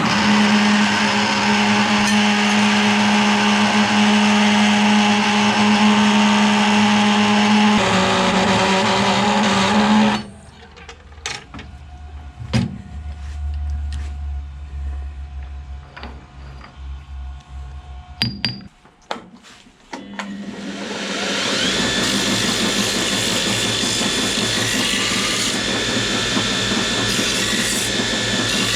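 A power tool cutting metal runs steadily for about ten seconds and then stops. A few clicks and knocks follow. About twenty seconds in, the tool starts up again and runs steadily.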